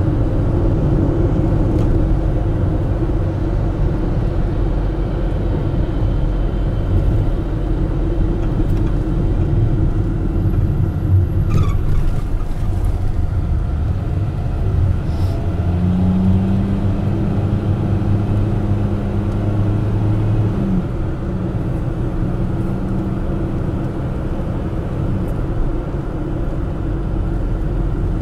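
Steady engine and tyre rumble heard from inside a moving car's cabin. A higher hum comes in a little past halfway for about five seconds, then drops away.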